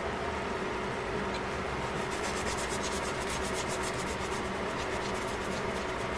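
Sliced chicken simmering in liquid in a stainless steel pot: a steady bubbling with dense fine crackling that thickens a couple of seconds in, over a constant low hum.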